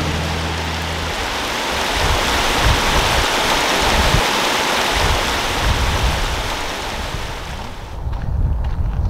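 Alpine mountain stream rushing over rocks, a steady loud rush of water. About eight seconds in the rush cuts off abruptly and gives way to low wind rumble on the microphone.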